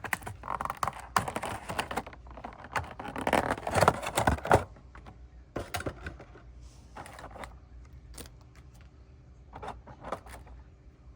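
Packaging of a diecast model airplane being opened by hand: dense rustling, scraping and clicking for the first few seconds, then scattered clicks and light handling.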